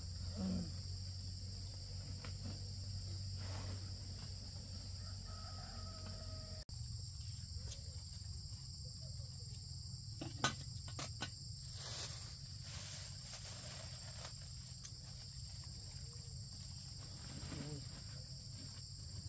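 Insects singing in a steady high-pitched drone, a constant chorus in two high pitches with no pauses. A few sharp knocks stand out about ten seconds in.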